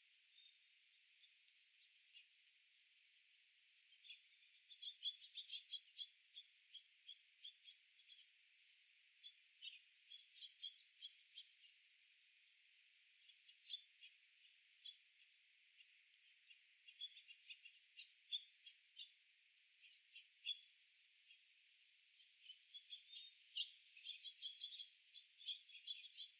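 Small songbirds chirping: quick runs of short, high chirps come and go, with the busiest spells about five seconds in and near the end.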